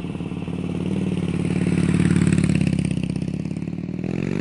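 Harley-Davidson V-twin motorcycle engine running with a pulsing exhaust note. It grows louder in the middle and revs up, rising in pitch, near the end.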